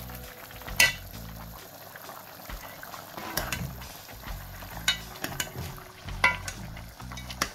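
A metal ladle stirring a pot of boiling curry goat in an aluminium Dutch pot, with the liquid bubbling. The ladle clinks against the pot about five times.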